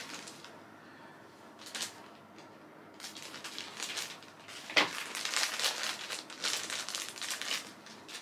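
Plastic toy packaging crinkling and rustling as it is cut open: a brief rustle about two seconds in, then a longer stretch of crinkling with one sharp click near the middle.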